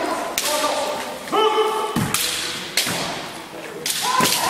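Kendo sparring: several sharp cracks of bamboo shinai striking armour and each other, with echoing after each hit. Two loud kiai shouts come in, one about a second in and one near the end.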